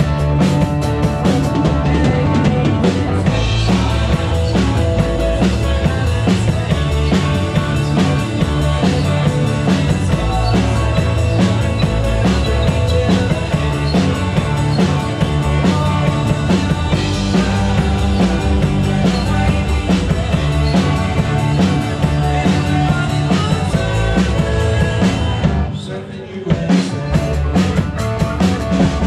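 Live rock band playing a song: drum kit, electric guitar and keyboards. Near the end the band breaks off for about a second, then comes back in.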